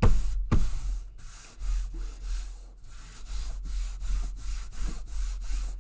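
Fingers rubbing and smoothing glued fabric down onto a book cover: a quick run of brushing strokes, with two knocks in the first second.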